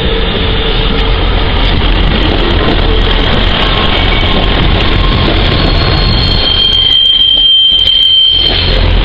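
A diesel multiple-unit train, a Sprinter coupled to a Pacer, runs steadily past the platform. A high wheel squeal comes in about six and a half seconds in and lasts about two seconds.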